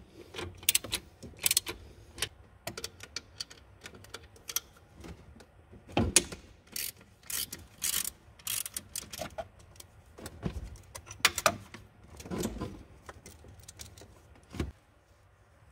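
Hand tools working on metal: irregular clicks, clinks and knocks, with a few louder metallic knocks about six seconds in, around eleven seconds and near the end.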